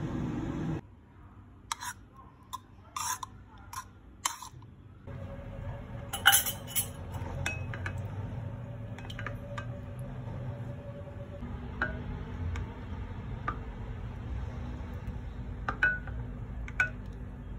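Utensils clinking and tapping against glass cookware, with a dozen or so sharp clinks scattered through, as a milk tea custard base is stirred in a glass pot. A steady low hum drops out about a second in and comes back about five seconds in.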